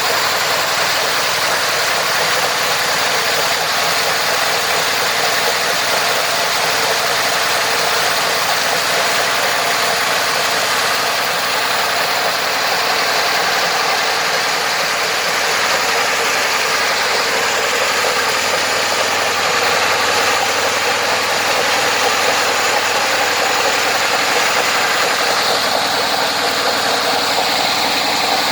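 Homemade sawmill running steadily, its engine drive and machinery making a loud, continuous mechanical noise that grows slightly louder about two-thirds of the way through.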